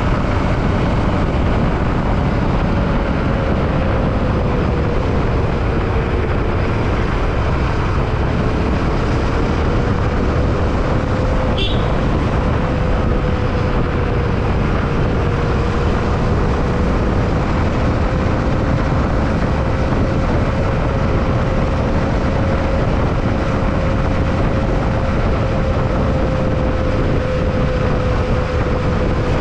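Yamaha WR155 single-cylinder engine running at a steady cruising speed, its pitch drifting slightly up and down, under a constant rush of wind and road noise. A single sharp click about twelve seconds in.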